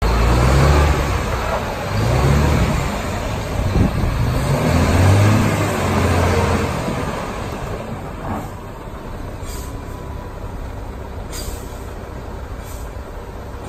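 Sinotruk HOWO 420 hp tractor unit's six-cylinder diesel engine pulling away, its pitch rising and falling with the throttle, then fading to a low steady run about seven seconds in as the truck moves off. A few short air hisses come in the later seconds.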